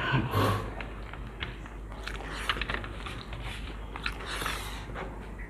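A person chewing mouthfuls of kacchi biryani, with scattered small wet clicks and smacks from eating.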